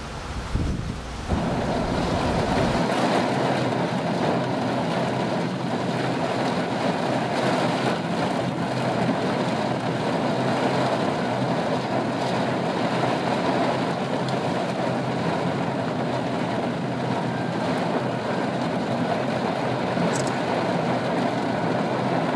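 Heavy monsoon rain pouring down, a steady dense hiss that starts suddenly about a second in.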